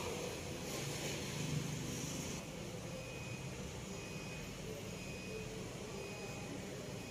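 Steady hum of outdoor urban street ambience, with a brief rise in hiss during the first couple of seconds. In the second half, faint short high beeps come about once a second.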